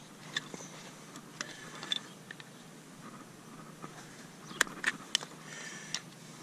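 Hoof knife paring the sole of a mule's front hoof: scattered sharp clicks and short scrapes as the horn is cut, the loudest a quick cluster of cuts about four and a half to five seconds in. The farrier is paring toward a dark spot near the toe, looking for an abscess.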